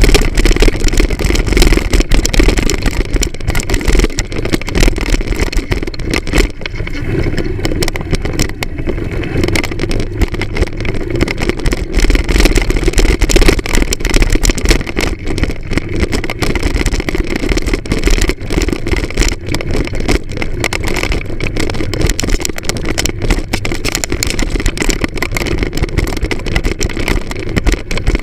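Moped engine running as it is ridden over a bumpy dirt track, heard from on the bike, with frequent short knocks and rattles.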